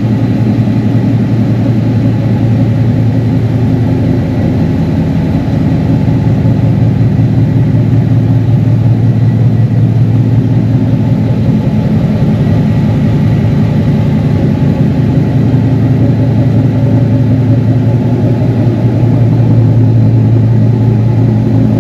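Ford Mustang GT's 5.0-litre V8 running steadily with a low drone, slightly louder near the end.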